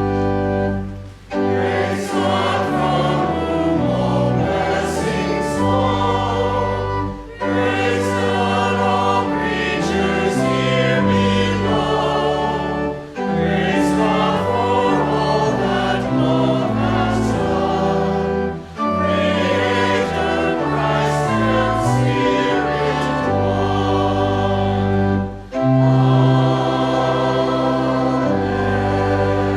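Choir singing a hymn or anthem with organ accompaniment, in phrases of about five to six seconds with a brief break between each.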